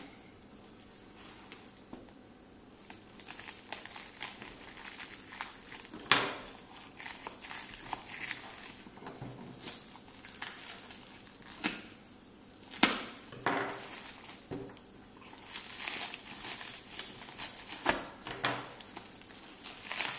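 Black plastic parcel wrapping and packing tape crinkling and tearing as the package is cut and pulled open by hand, with a few louder sharp crackles along the way.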